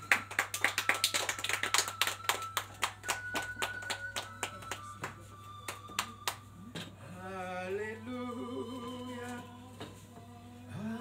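Hands clapping in a quick, even rhythm, about five claps a second, for roughly six seconds. A voice then starts singing long, wavering notes.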